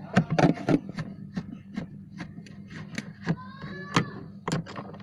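Repeated clicks and knocks from handling refrigerator parts, with a short creaking squeak about three and a half seconds in, over a steady low hum.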